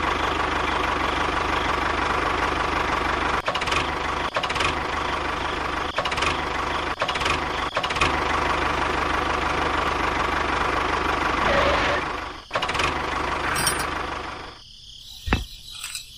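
Miniature DIY toy tractor running: a steady engine-like drone with a constant hum, broken by a few short clicks. Near the end it drops away and a single sharp click is heard.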